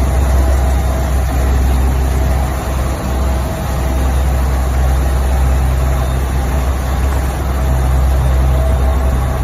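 A boat's engine running steadily under way, a low drone, with the rushing noise of the wake.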